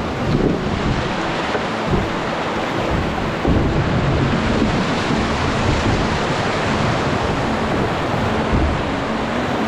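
Whitewater of a river rapid rushing and splashing around a kayak as it runs down the rapid: a loud, steady rush, with a few short low thumps.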